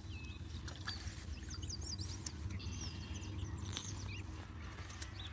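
Small birds chirping, many short quick calls, over a low steady rumble.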